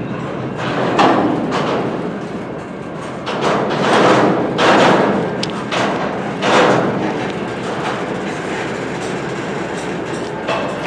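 CN freight train rolling on the rails, a steady rumble of wheels with heavy clunks and clatters from the cars at irregular intervals.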